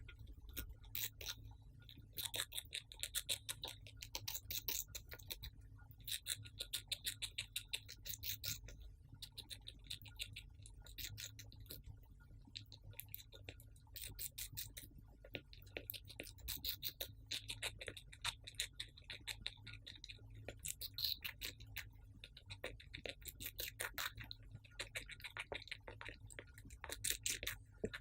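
Hamster nibbling and chewing watermelon close to the microphone: quick, sharp clicking bites in bursts of a second or two, with short pauses between.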